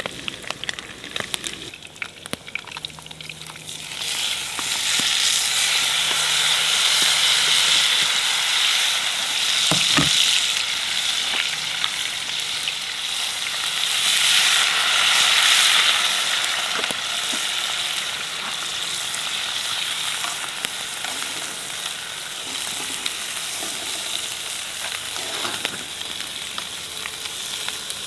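Armadillo meat frying with tomato, onion and green pepper in a hot pan over a wood fire, sizzling while a fork stirs it. The sizzle swells about four seconds in and is loudest around fourteen seconds, when water is poured from a bottle into the hot pan. There is one knock about ten seconds in.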